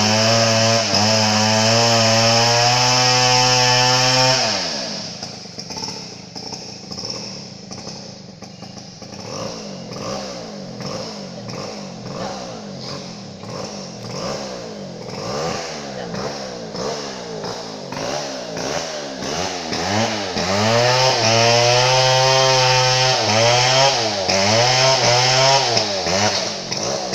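Chainsaw held at a steady high rev for about four seconds, then dropping and revving up and down over and over. Around twenty seconds in it goes back to a steady high rev, then gives a few short blips of throttle near the end.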